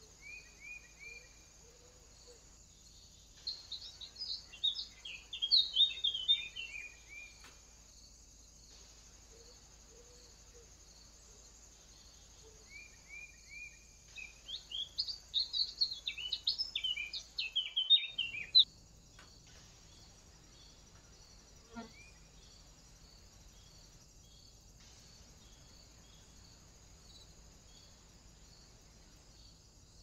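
Two bouts of rapid bird song, each a few seconds of quick chirping notes that step down in pitch. They run over a faint, steady high-pitched insect chirring.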